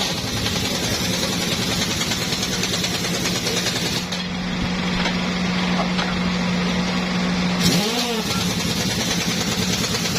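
Impact wrench running in two long bursts, the second starting abruptly about eight seconds in, over a steady engine hum.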